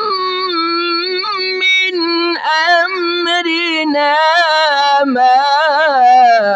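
An elderly man's voice reciting the Quran in melodic tajweed style, drawing out long held notes that glide between pitches. There is a brief breath break about two and a half seconds in, and a quick wavering ornament near the end.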